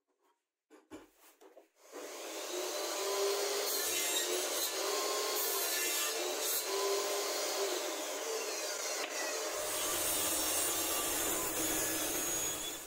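Homemade table saw running and cutting plywood: a steady noise of the blade in the wood over a constant motor tone, with a lower rumble added in the last few seconds, stopping abruptly near the end. A few light knocks about a second in.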